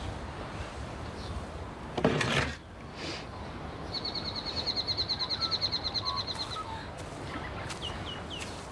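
Outdoor backyard ambience with birdsong: a small bird gives a rapid, even trill of about ten notes a second for around two and a half seconds, and a few short chirps follow near the end. About two seconds in, a brief loud noisy burst like a rustle or hiss stands out above the background.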